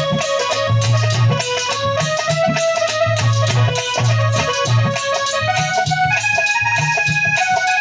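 Instrumental Indian devotional folk music: a dholak drum plays a steady rhythm under a melody of held notes on a keyboard.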